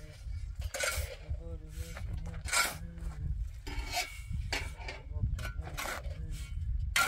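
Steel shovel blade scraping across the ground and turning a pile of cement and sand mortar mix, several separate scraping strokes.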